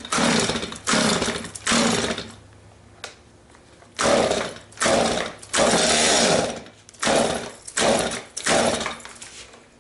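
Two-stroke Stihl chainsaw's recoil starter pulled hard about nine times, three pulls and then six more after a short pause. Each pull spins the engine over without it catching. The engine is flooded, with a soaked spark plug, and the owner thinks fuel-tank pressure is pushing too much fuel to the carburettor.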